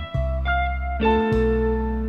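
Instrumental introduction of a Latin ballad: picked guitar notes over a steady bass line, with a fuller chord coming in about halfway.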